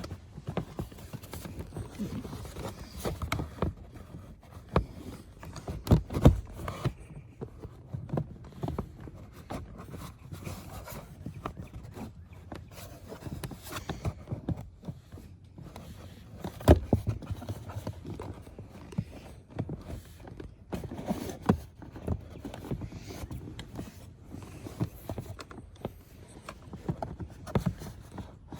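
Plastic under-dash trim panel being worked into place: irregular knocks, clicks and scraping of plastic against plastic, with a few sharper knocks.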